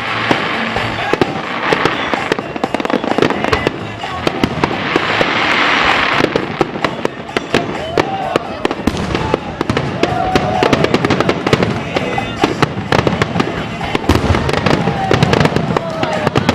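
Fireworks finale: a dense, rapid barrage of bangs and crackles, with hissing swells in the first few seconds and a few gliding whistle-like tones around the middle.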